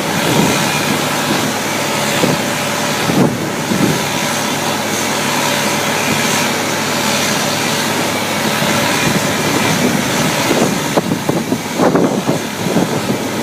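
Engines of heavy piling equipment running steadily: a concrete pump pushing cement through a thick hose down the centre of a large auger drill rig as a foundation piling is filled. Some irregular louder pulses come near the end.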